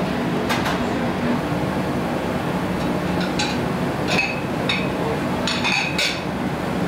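Steady machine-like background noise of a working restaurant kitchen, with several light metallic clinks, most of them between about three and six seconds in.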